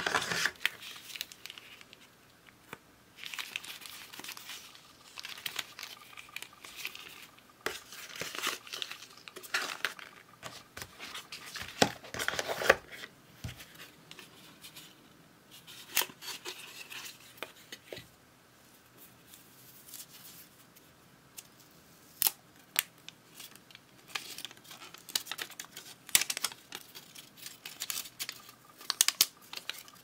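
Paper and cardboard packaging of a pair of wireless earbuds being handled: rustling, sliding and crinkling of paper sleeves and a cardboard insert in irregular bursts with quieter gaps, and scattered sharp clicks and taps as the plastic charging case is lifted out.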